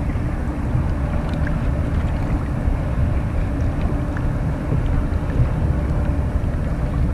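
Steady low wind rumble on the microphone out on the water, with a few faint ticks.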